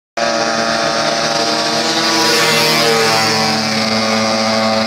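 Quad bike (ATV) engines running at a steady speed while riding: one loud, even engine drone that holds the same pitch throughout, starting suddenly just after the opening moment.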